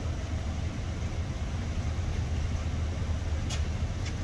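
Steady low rumble of a motor vehicle, with a single short click about three and a half seconds in.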